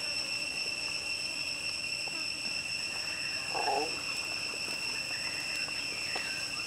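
Steady, unwavering high-pitched drone of insects over faint crackling from a wood-ember fire, with one short lower sound a little past halfway.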